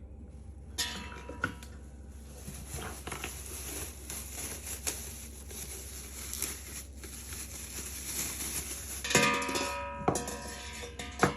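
Clinks, knocks and rattles of a food chopper's parts being handled, with ringing knocks about a second in and near the end. A steady low hum runs underneath.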